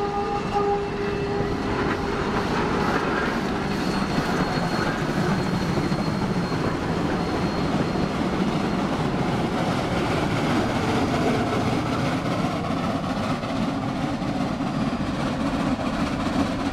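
Two geared Shay steam locomotives working hard up a grade at close range, their rapid exhaust chuffs merging into a dense, steady beat. A steam whistle blast dies away in the first second.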